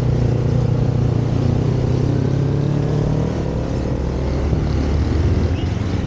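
Motorcycle riding along at steady speed: the engine runs evenly under heavy low rumble of wind and road noise.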